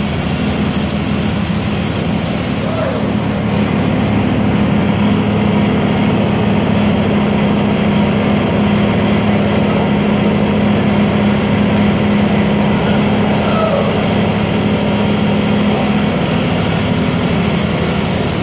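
Touchless automatic car wash running: a steady machine hum from its pumps and motors under the hiss of water and foam spraying onto a car. The high part of the hiss eases for several seconds midway, then returns.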